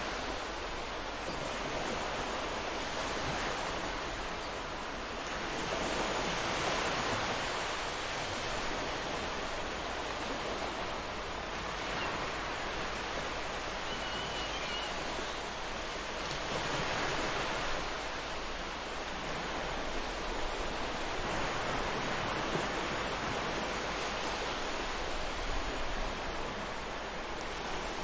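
Ocean waves breaking on a beach: a steady wash of surf that swells and fades every few seconds.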